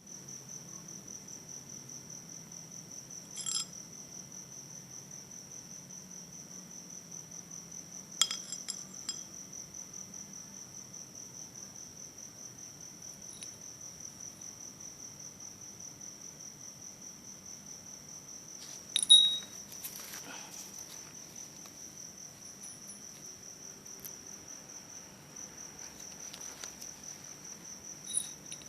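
A cricket trilling steadily and high, with a few short metallic clinks about 3 and 8 seconds in, about 19 seconds in (the loudest), and near the end.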